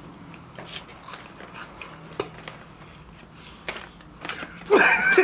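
Someone chewing a crunchy snack chip with the mouth closed: faint, scattered crunches. A short loud burst of voice comes near the end.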